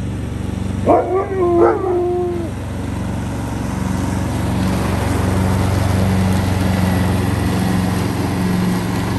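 A dog gives a wavering howl about a second in, holding one long note. Under it, a Husqvarna ride-on lawn mower's engine runs steadily and grows a little louder as the mower comes closer.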